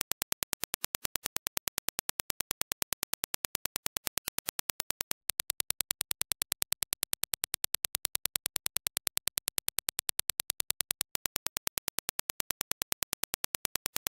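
A rapid, even train of sharp test clicks, a repeated Dirac impulse. After a short break about five seconds in, it changes to the same impulse as reproduced by the Dan Clark Audio Ether 2 open-back planar-magnetic headphones, slightly louder. After another short break near the end, it returns to the clean reference clicks.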